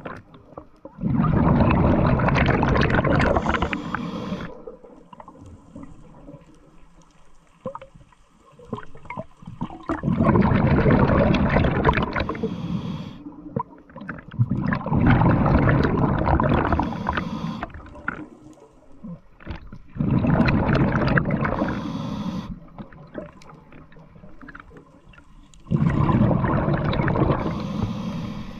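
Scuba diver breathing through a regulator underwater: five long exhalations of rushing, gurgling bubbles, each lasting about three seconds, with much quieter stretches between.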